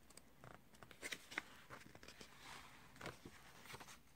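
Faint paper rustling and light taps as a picture book's page is handled and turned.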